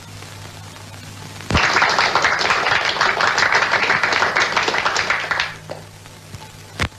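A group of people clapping, starting suddenly about a second and a half in and dying away about four seconds later. A steady low hum runs underneath, with a single sharp click near the end.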